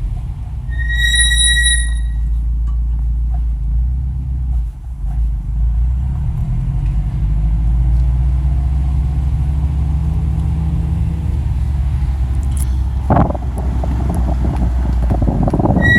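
Hawk HP Plus brake pads on a 2016 Subaru STI squealing once under light braking with warm rotors: a high, steady squeal lasting about a second near the start. A low, steady rumble from the running car sits under it. Rough rushing noise comes near the end, and a second squeal begins just as it closes.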